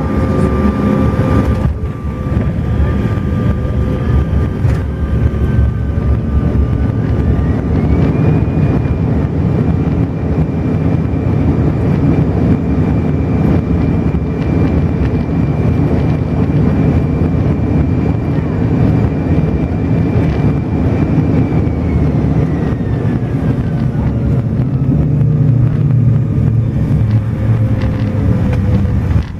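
Cabin noise of a Bombardier CRJ900 after landing, heard from inside: a steady low rumble from the wheels and the rear-mounted General Electric CF34 turbofans, with an engine whine that rises about seven seconds in, holds, and falls away after about twenty seconds.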